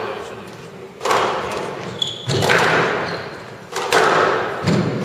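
Squash ball being hit back and forth in a rally: sharp racket strikes and the ball thudding off the court walls, about four hard hits, each echoing in a large hall.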